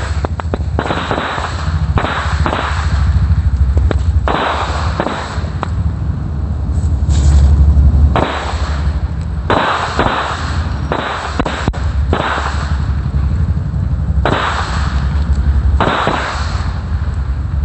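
Pile of mercon korek match-head firecrackers going off unevenly: scattered sharp pops and crackles with short spells of hiss, over a steady low rumble. Many of the firecrackers in the pile are not burning.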